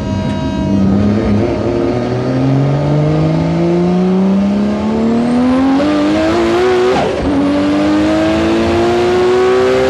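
HKS 2.8-litre stroker RB inline-six in an R33 Skyline GT-R accelerating hard, heard from inside the cabin. Revs climb steadily for about seven seconds, drop with a quick upshift, then climb again.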